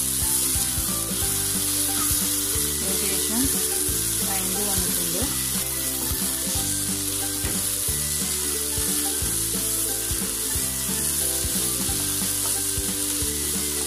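Chopped onions, tomatoes and dried red chillies sizzling in oil in a nonstick frying pan, sautéed nearly soft. A wooden spatula stirs them, with scattered scrapes and taps against the pan.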